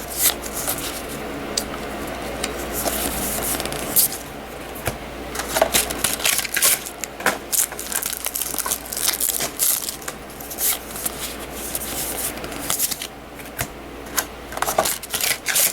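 Trading cards flipped and slid through by hand, with frequent irregular short clicks and snaps of card stock over a steady low hum.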